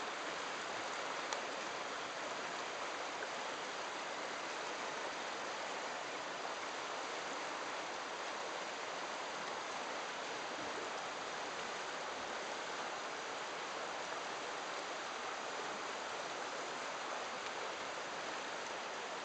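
River current flowing fast and rippling below, a steady even rush of water.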